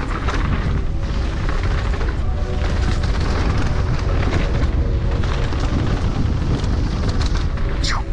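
Heavy rumbling wind and trail noise from a mountain bike ride, with music laid over it. A brief whine falls in pitch near the end.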